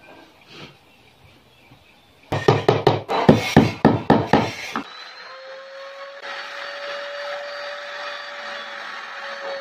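A rapid run of about ten sharp knocks on wood, like hammer or mallet strikes, lasting about two and a half seconds. Then an electric woodworking power tool starts and runs with a steady whine.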